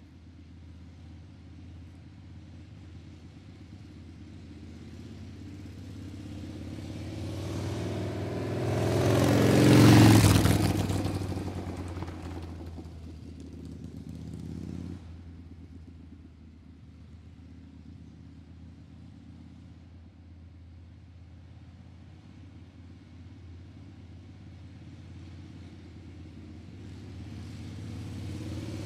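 A motor vehicle passing by over a steady low engine hum: the engine sound swells to a loud peak about ten seconds in, then drops in pitch and fades. A second swell breaks off sharply around fifteen seconds, and another vehicle approaches, growing louder, near the end.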